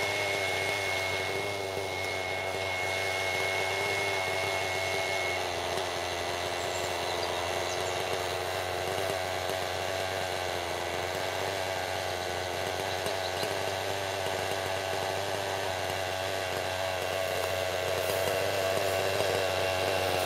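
Redline .53 two-stroke nitro engine with a Redline Hi Flow tuned pipe, running steadily at low speed in a T-Rex 600N model helicopter on the ground, with the rotor turning. It grows a little louder near the end.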